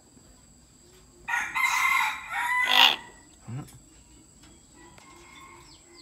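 Common hill myna giving one loud, harsh call about a second in, lasting under two seconds.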